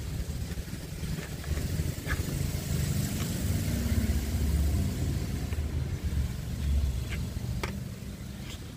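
A low, uneven rumble that rises and falls, with a few light clicks as the helmet visor's pivot mount is worked loose.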